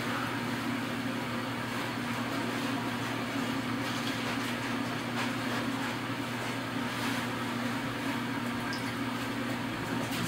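Steady low hum with an even background hiss, unchanging throughout, with a few faint soft clicks.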